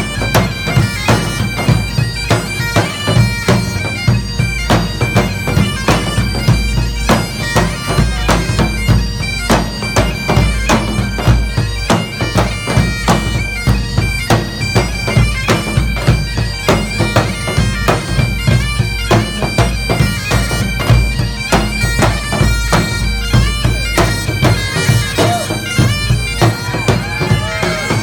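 Great Highland bagpipes playing a tune over their steady drones, with drums beating a regular rhythm beneath: a pipe band in full play.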